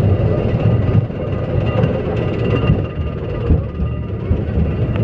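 Big Thunder Mountain mine-train roller coaster rolling along its track, heard from on board: a steady low rumble and rattle from the wheels, with faint thin high squeals.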